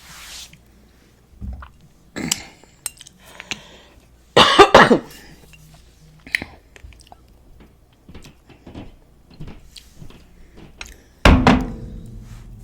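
Close-miked eating with small mouth clicks, broken by two loud coughs, one about four and a half seconds in and another near the end.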